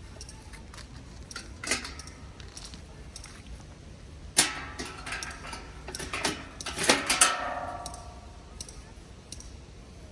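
Camp cooking gear being handled: scattered clinks and knocks, a few ringing briefly, busiest around the middle.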